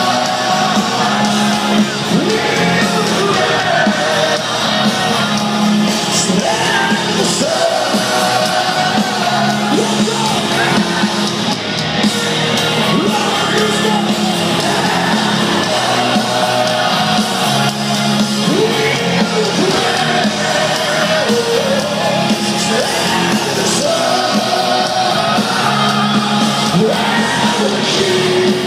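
Live heavy metal band playing, with sung lead vocals over the instruments and yells from the crowd, heard from within a large arena.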